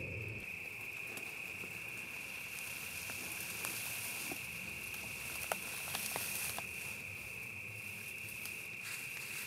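A steady, high, unbroken insect drone, with scattered faint clicks and rustles in the middle and one sharper click about five and a half seconds in.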